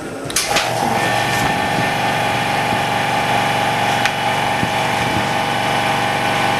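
Screen bubble remover machine starting up with a click, then running with a steady pitched mechanical hum as it begins its de-bubbling cycle.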